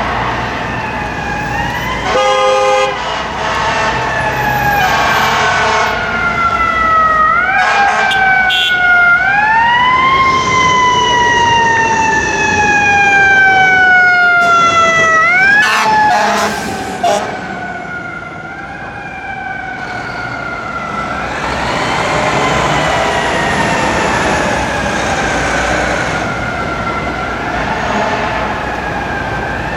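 Fire truck siren wailing in repeated sweeps, each rising quickly and then falling slowly over several seconds. A short air horn blast sounds about two seconds in.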